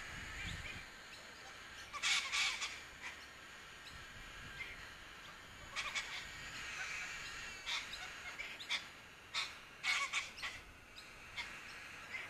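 Harsh, squawking calls from a flock of white cockatoos perched on power lines. The calls come in short bursts every second or two, loudest about two seconds in and again near the end.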